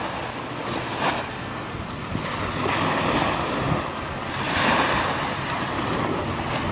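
Small sea waves breaking and washing up a sandy beach, swelling and easing, with wind blowing on the microphone.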